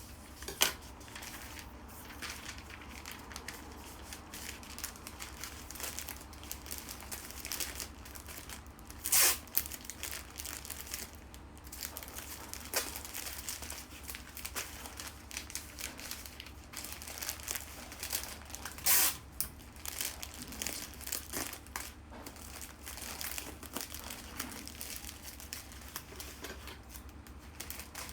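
Bouquet wrapping material crinkling and rustling as it is handled and folded, with a few louder, sharper crackles: one about a second in, one around nine seconds and one around nineteen seconds.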